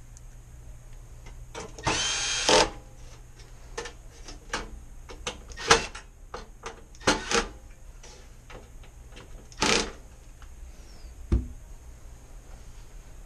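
A power drill-driver runs in short bursts, fastening the oven door's glass frame back in place, with sharp clicks and knocks of the metal parts being handled between the runs and a dull thump near the end.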